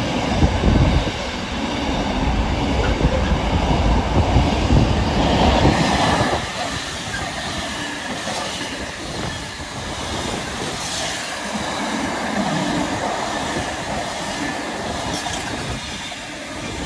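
Intermodal container freight train passing at speed: heavy rumble of wagon wheels on the rails. About six seconds in it changes to the lighter, higher rattle and clatter of empty container flat wagons rolling past, with sharp clicks from the wheels over rail joints.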